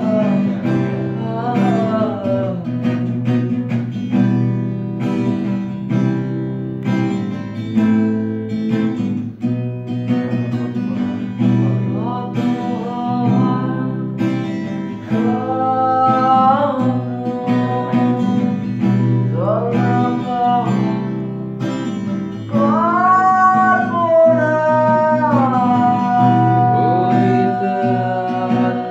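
An acoustic guitar strummed in chords while a man sings a Bengali song, holding long, bending notes; the voice grows louder in the last few seconds.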